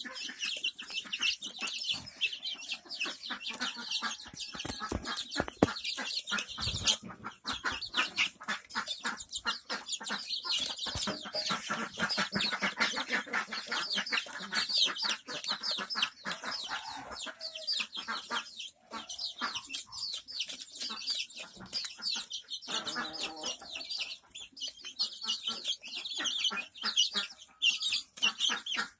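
A flock of 24-day-old desi chicks peeping and clucking continuously while feeding, with many rapid clicks of beaks pecking grain from a plastic feeder tray.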